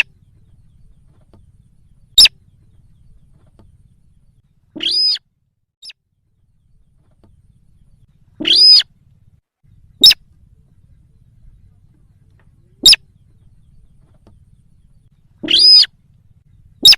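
Lure recording of a sintar sawah calling: single sharp click-like notes every few seconds, alternating with three short, harsh pitched calls of about half a second each.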